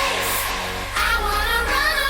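Pop song playing: a sung, stretched-out vocal note with a second vocal line sliding up, over a steady beat and synth bass.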